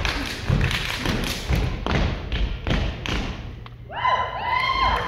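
Steppers' stomps and slaps on a wooden stage: a quick, uneven string of sharp thumps for the first three and a half seconds, then voices shouting near the end.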